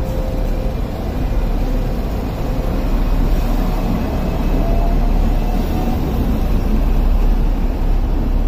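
Hong Kong double-decker tram running along the street, heard on board: a steady low rumble of wheels on rails and running gear, with a faint whine over it.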